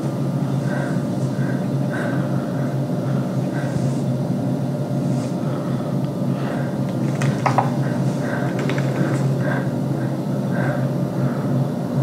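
Low, steady droning ambience of a horror film's soundtrack, with faint short sounds repeating through it and a few sharp clicks a little past halfway.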